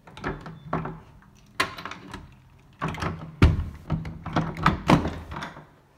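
An interior door being handled and pushed past: a run of irregular knocks and thumps, the loudest about three and a half seconds in.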